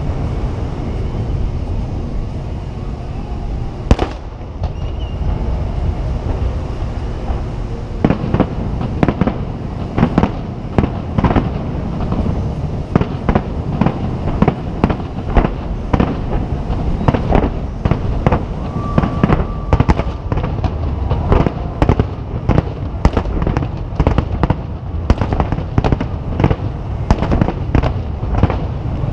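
Nagaoka aerial firework shells bursting in a series of sharp bangs: sparse at first with one loud bang about four seconds in, then dense and near-continuous from about eight seconds on, over a constant low rumble.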